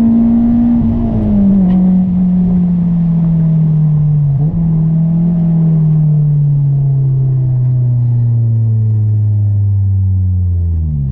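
Honda S2000's four-cylinder engine, breathing through an aftermarket intake, running while driving. Its note holds steady for about a second, then falls slowly as the revs drop, with a brief dip in pitch about four and a half seconds in and a deeper one near the end before it steadies.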